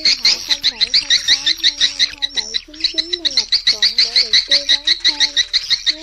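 Edible-nest swiftlet lure recording of the outdoor flock call: fast, even, high chirping twitters, about eight a second, with music mixed in underneath.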